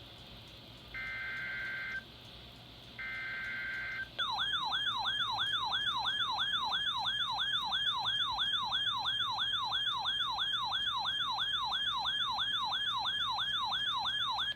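Emergency Alert System SAME header: two of its three one-second data bursts, a harsh two-pitch buzz. From about four seconds in comes a loud warbling, siren-like attention tone that sweeps up and down about two and a half times a second for roughly ten seconds, then cuts off.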